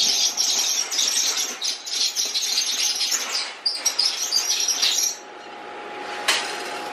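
Puppies squealing and yelping in quick high-pitched bursts, which stop abruptly about five seconds in.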